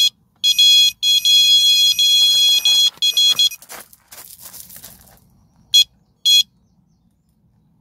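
Carp-fishing electronic bite alarm sounding a run: a fast, near-continuous stream of high-pitched beeps for about three seconds, then a short burst of noise, and two single beeps near the end. The signal means a fish has taken the bait and is pulling line.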